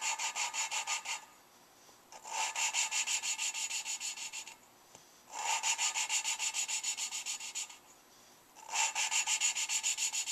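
Valve being hand-lapped into its seat in a Suzuki G16A 16-valve cylinder head with fine lapping compound: a gritty rasping, in four bouts of rapid back-and-forth strokes separated by short pauses. Each bout starts loud and then gets quieter, a sign that valve and seat are not yet fully mated.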